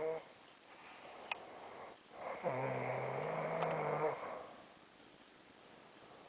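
A woman snoring in her sleep. The tail of one snore ends right at the start, and after a pause comes one low, buzzing snore lasting nearly two seconds.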